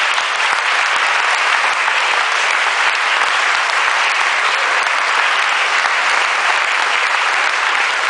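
Audience applauding steadily, a dense, even clapping that holds throughout.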